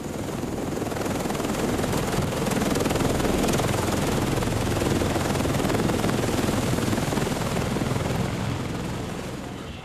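Loud, steady aircraft roar, starting abruptly and easing off near the end.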